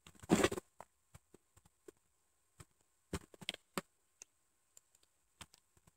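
Sparse computer keyboard key presses and mouse clicks, one or a few at a time, with a small cluster a little over three seconds in and a short louder noise right at the start.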